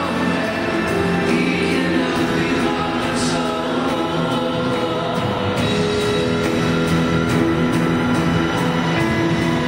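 Rock band and full symphony orchestra playing together live, with long held chords and singing voices over them.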